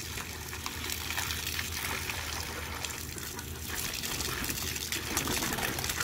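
A garden hose stream splashing steadily into a shallow clay water bowl, filling it.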